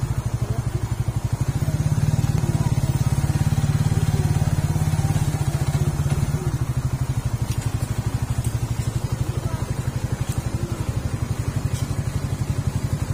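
Suzuki Raider 150 Fi motorcycle's single-cylinder four-stroke engine running at a steady low speed as the bike is ridden, easing off a little about six seconds in, with a few light clicks near the end.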